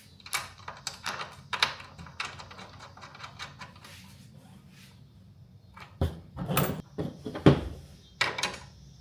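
Metal bolt, nut and hand tools being worked on a mower's wheel mount: a run of light metal clicks, then heavier clunks and knocks from about six seconds in.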